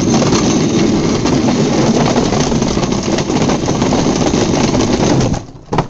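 Small pushed go-kart's wheels rolling fast over brick paving, a loud rattling rumble that cuts off abruptly about five seconds in, followed by a short knock near the end.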